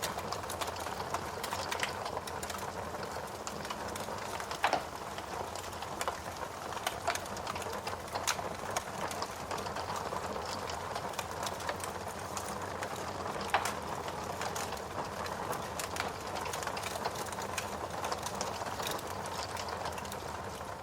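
Fire crackling: a steady hiss dotted with many sharp crackles, with two louder pops, one about five seconds in and one a little past the middle.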